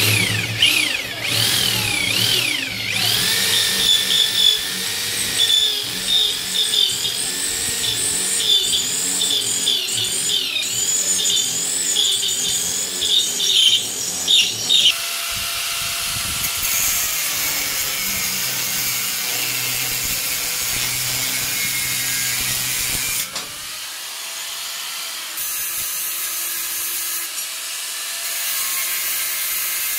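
A power tool working metal, running loud with a wavering, squealing pitch for about the first half, then settling into a steadier hiss.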